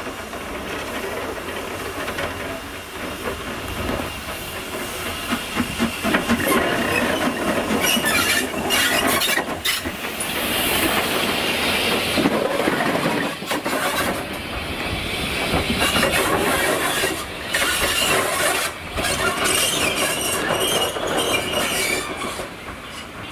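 A steam tank locomotive passing close by on the adjacent track, heard from a moving train: wheel clatter and rail noise, with a hiss of steam as the engine draws level about ten seconds in.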